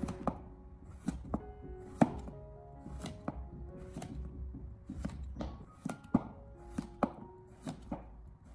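Chinese cleaver cutting raw taro into sticks on a wooden cutting board: a sharp knock each time the blade meets the board, about two cuts a second, unevenly spaced. Soft background music plays underneath.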